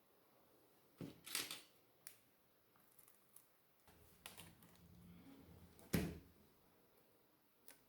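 Faint, scattered clicks and taps of small tools and tablet parts being handled on a work surface, with a short scrape about a second in and a louder knock near six seconds.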